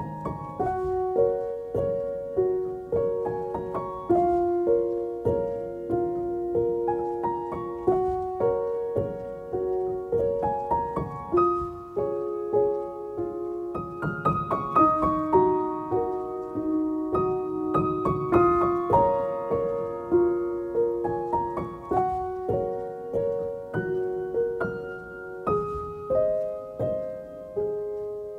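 Piano music: a melody of struck notes that ring and fade, about two notes a second.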